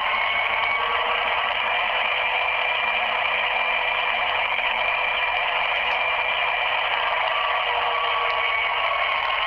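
Recorded diesel locomotive sound played over a phone on speakerphone: a steady running sound, tinny and thin from the phone's small speaker, with faint tones drifting slowly up and down.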